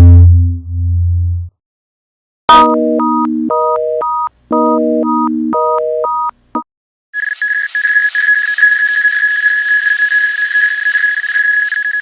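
Synthesized electronic sound effects: a low electronic drone cuts off about a second and a half in. A short repeating beep pattern follows, alarm-like and played twice, then a steady high electronic tone with a hissy edge that holds to the end.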